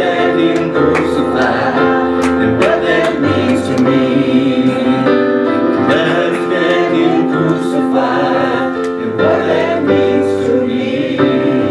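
Gospel song: a singing voice over sustained keyboard chords.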